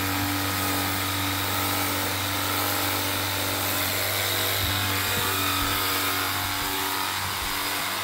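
Cordless battery-powered pressure washer running steadily, its pump hum under the hiss of the water jet spraying onto a rug.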